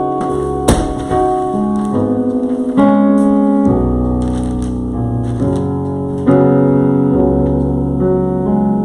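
Slow piano or electric keyboard chords, held and changing every second or so, with a sharp click about a second in.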